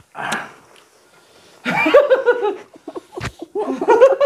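People laughing in short bursts, with a single sharp tap about three seconds in.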